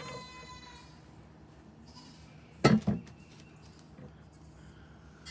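A goat bleats once, a high, steady call that fades out within the first second. About two and a half seconds in come two loud knocks in quick succession.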